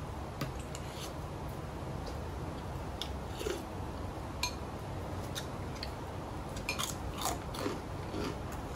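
A person chewing and biting food close to the microphone, with scattered crisp crunches and clicks that come more often in the second half, over a steady low hum.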